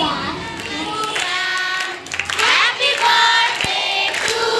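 Children singing a song together into a microphone, holding long notes.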